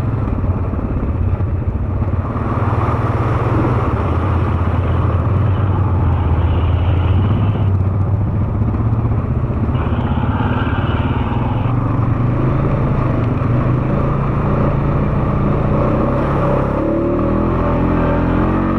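ATV engine running steadily while riding, with its pitch steps up near the end.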